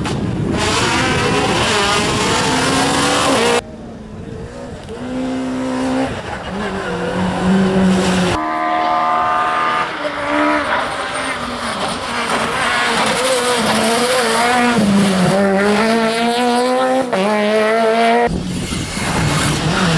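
Rally car engines driven hard through bends, the pitch climbing and dropping again and again through throttle lifts and gear changes. The sound switches abruptly from one car to the next about three times.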